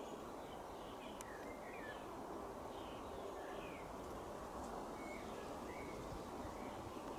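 Small birds chirping in short calls every second or so over a steady background noise.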